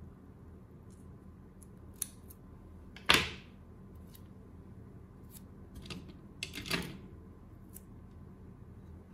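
Small hand tools being handled on a wooden tabletop: scattered light clicks and taps, with one sharper clack about three seconds in and a short cluster of clicks near seven seconds.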